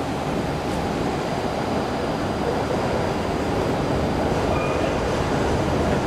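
A tram rolling along its rails: a steady running noise that grows a little louder.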